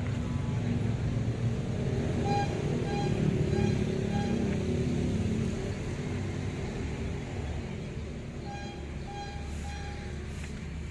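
Music played loud through a line-array PA system and its subwoofers during a sound check, heavy in the bass, with two short runs of quick repeated high notes; it grows a little quieter in the second half.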